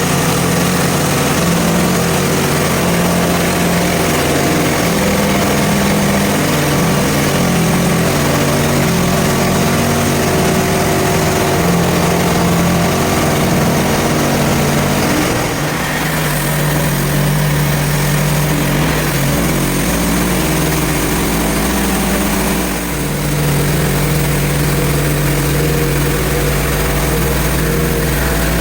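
Portable bandsaw sawmill's engine running steadily as the mill saws through a hard maple log. Its low tone changes about halfway through.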